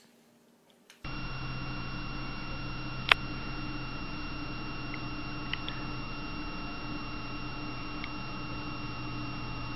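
Steady electrical hum with a thin high whine, starting abruptly about a second in after near silence; one sharp click about three seconds in.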